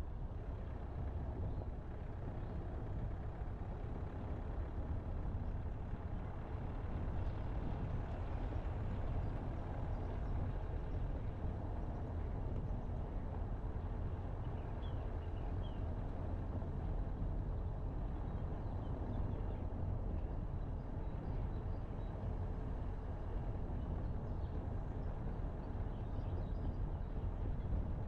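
Steady low rumble of a car driving along an asphalt road: tyre and engine noise at a constant cruising pace.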